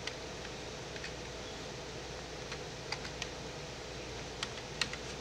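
About six sharp, scattered clicks from a computer mouse and keyboard during spreadsheet work, over a faint steady hum of background noise.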